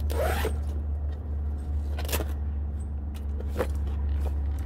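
Snow-chain kit being handled out of its bag: a brief rustle, then a few light clicks and knocks, over a steady low rumble.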